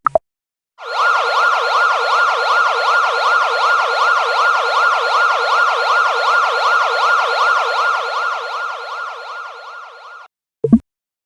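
CyanogenOS phone emergency alert tone: a siren-like warble sweeping quickly up and down, about three or four sweeps a second. It fades over its last couple of seconds and cuts off, and a short sharp click follows near the end.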